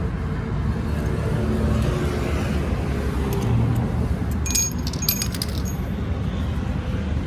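A short run of metallic clinks and jingles, small metal parts or tools knocking together, over a steady low rumble of traffic or engine noise.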